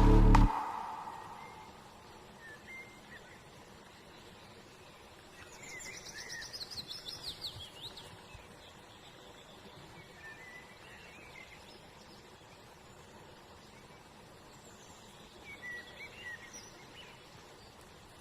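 Birds calling over a faint outdoor hiss: scattered short chirps, and a louder run of quick, descending trilled notes about six seconds in.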